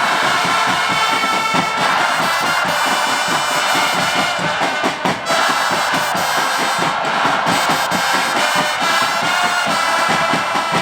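Football supporters' stand singing a chant together over a steady drumbeat, with held brass notes.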